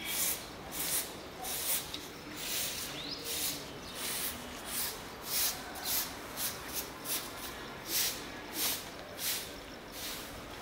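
Regular scuffing strokes on a gritty concrete floor, about one and a half a second, each a short dry hiss.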